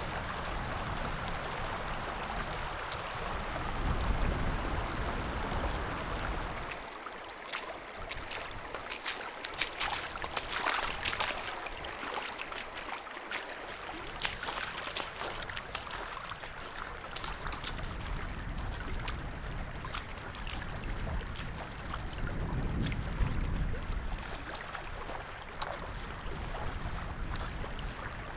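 Shallow, silty river water flowing and rippling over a sandy bed close to the microphone, with a scatter of small splashes and trickles in the middle and a heavier low rumble at times.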